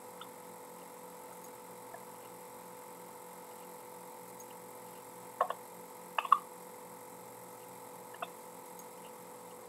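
Computer mouse clicking a few times over a steady electrical hum: two quick pairs of clicks just past the middle and a single click near the end.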